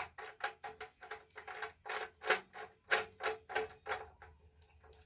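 A plastic wing nut being threaded onto the bench grinder's tool-rest bolt: a quick run of rattling clicks, about four a second, that stops about four seconds in.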